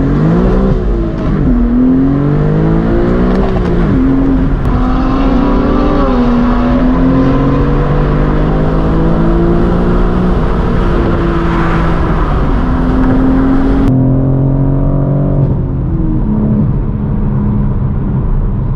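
High-performance car engines accelerating hard, each engine note rising and dropping again through gear shifts, with more than one engine pitch heard at times. The sound turns duller abruptly about fourteen seconds in.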